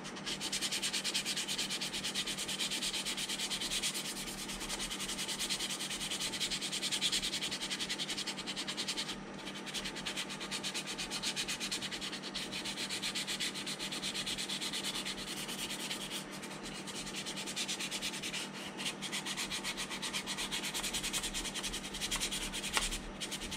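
Coarse sandpaper rubbed by hand over puttied seams on a plastic model kit's hull, in quick continuous strokes. There is a brief pause about nine seconds in and another near the end.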